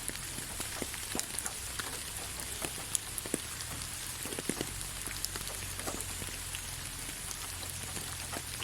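Gentle, steady rain falling on a surface: an even hiss with scattered individual drops ticking, over a faint low hum.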